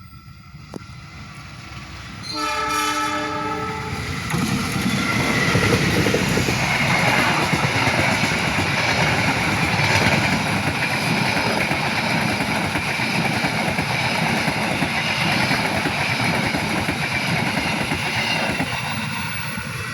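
Diesel-hauled Taksaka express train sounding a single chord blast on its horn, about a second and a half long, then passing at speed with a loud, steady rush of wheel and rail noise that eases slightly near the end.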